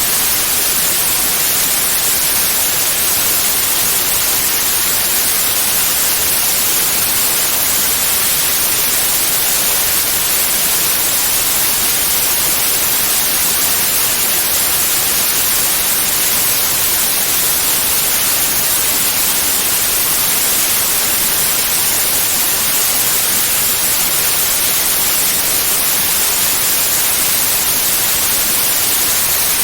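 Steady white noise: an even, unchanging hiss across all pitches, used as a tinnitus masker.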